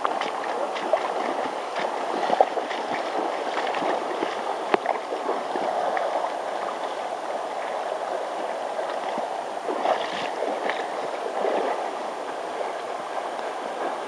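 Shallow rocky river running fast over riffles, a steady rush of water, with scattered short clicks and small splashes, the sharpest about two and a half and four and a half seconds in.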